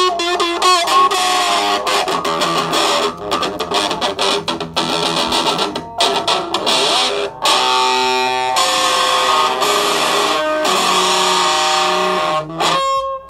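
Electric guitar played with distortion through an amplifier: fast picked notes at first, then held notes and chords from about halfway, with a short break near the end.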